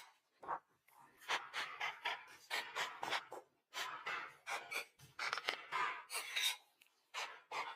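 Close-miked eating: chewing and mouth sounds, short irregular smacks and crunches a few times a second.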